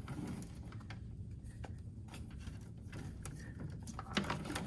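Faint handling noises of cables and hardware being worked by hand: light rustles and scattered small clicks over a low room hum, with a few sharper clicks near the end.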